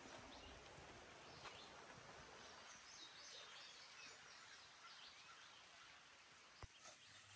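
Faint woodland ambience: a quiet, steady outdoor hiss with soft bird chirps through the middle, and a single sharp click near the end.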